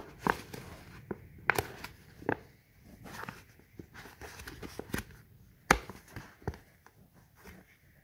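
Scored polypropylene plastic sheet being bent and folded by hand along its score lines: irregular sharp clicks and crackles as the plastic flexes and snaps into the crease, the loudest just before six seconds in.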